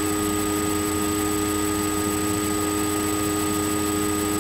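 Steady hiss with a constant electrical hum made of several fixed tones, unchanging throughout: the recording's own noise floor, with no other sound.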